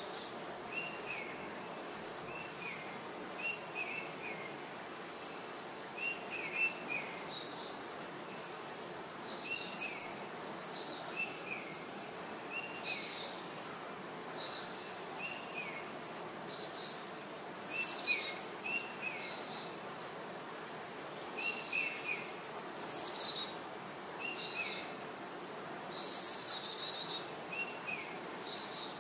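Baby parrot chirping over and over while begging at feeding time. It gives short chirps in twos and threes every second or two, mixed with louder, higher squeaky calls every few seconds.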